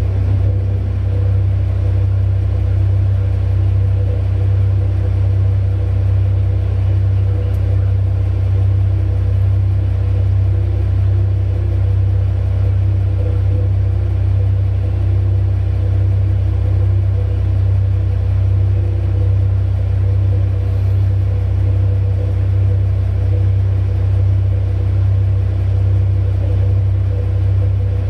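Heavy mining diesel engines of a Liebherr R 9200 excavator and a Komatsu HD785 haul truck running under load, a steady low rumble.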